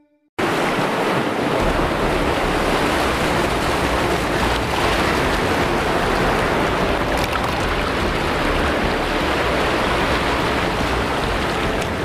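Small waterfall cascading over rocks: a steady rush of water that starts suddenly about half a second in.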